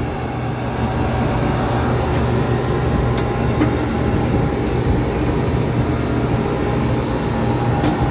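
Trane Voyager 25-ton rooftop packaged air-conditioning unit running: compressor and condenser fans giving a loud, steady hum with a steady whine above it, and a few faint clicks about three seconds in and near the end.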